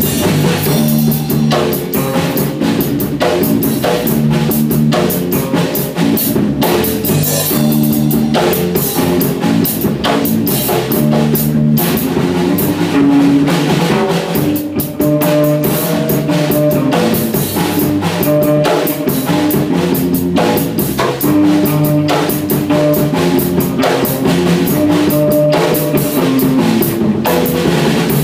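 Instrumental rock played live in a room: electric bass guitar lines over a drum kit.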